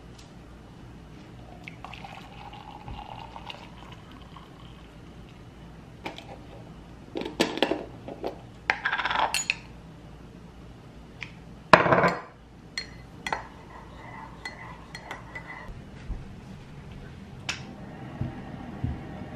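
Water poured from a stainless steel pot into a ceramic mug, then a metal spoon scraping and clinking against a glass honey jar and the mug, with one sharp loud clink about twelve seconds in.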